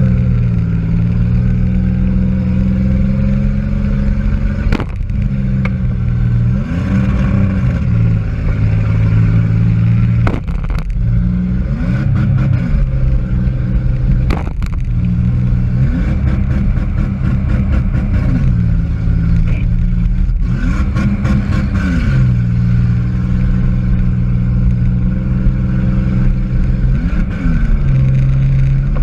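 Demolition derby car's engine heard from inside the car, running loud and revving up and falling back about half a dozen times. A few sharp bangs cut in, about five, ten and fourteen seconds in.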